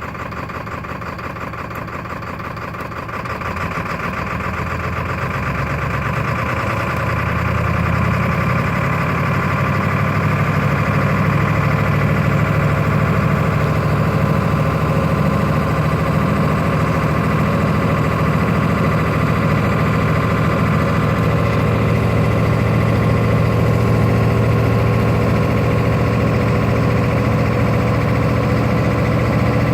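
Ford 7.3L Power Stroke turbo-diesel V8 in a 1996 F350 idling rough, which the owner calls running rough. It grows louder over the first several seconds, then holds steady.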